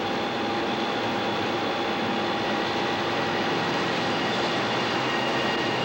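Steady running noise of a vehicle, an even hiss and rumble with a few steady high tones over it.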